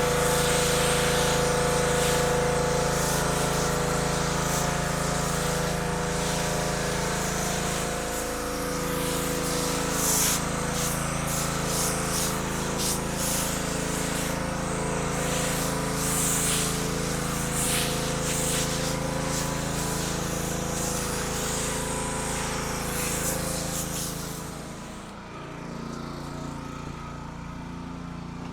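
Gasoline pressure washer engine running steadily while its wand sprays water, the spray hissing and spattering on top of the engine note. Near the end the sound drops and becomes quieter.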